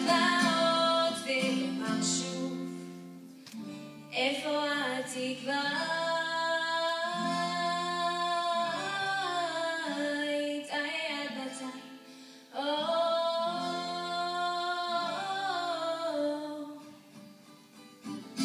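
A girl sings a slow song into a microphone in long held phrases with bending pitch, accompanied by a plucked acoustic guitar. The voice breaks off briefly about four seconds in and again about twelve seconds in, and fades near the end while the guitar carries on.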